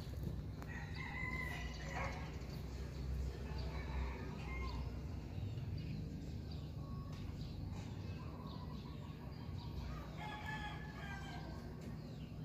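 A rooster crowing: one call about a second in and another near the end, over a steady low rumble.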